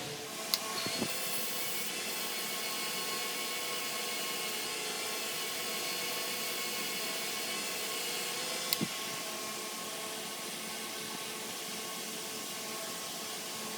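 Small electric motor running steadily with a high hiss and a whine. A couple of short clicks come about half a second in and near 9 s, where one of the tones drops out.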